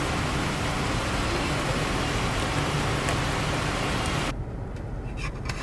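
Steady road and wind noise inside a moving car. About four seconds in the hiss drops away abruptly, leaving a low rumble with a few faint clicks.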